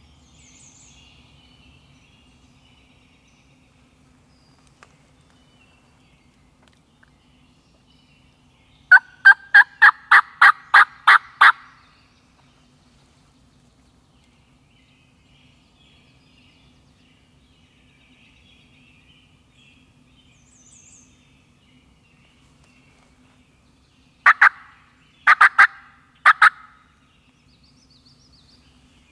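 Wild turkey calls: a loud run of about ten evenly spaced notes about nine seconds in, then three short calls about a second apart near the end.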